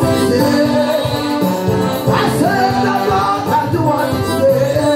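A woman singing a worship song into a microphone, amplified through a PA, over live instrumental accompaniment with held keyboard-like chords.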